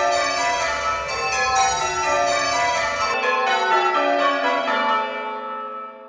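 Recorded Marsham church bells played back through the Abel ringing-simulator software: a ring of bells striking one after another in an even change-ringing rhythm. The strikes stop about five seconds in and the last bell's hum dies away.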